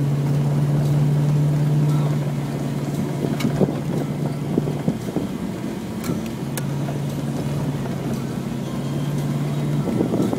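Rally car's engine droning at steady revs, heard from inside the cabin while driving fast on a rough gravel track, with scattered knocks and rattles from the road. The engine note drops away about five seconds in and returns a second or so later.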